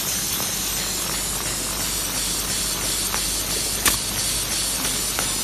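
Paper box forming machine making bread-tray blanks, running at production speed with a steady, even rushing noise. A single sharp click stands out about four seconds in.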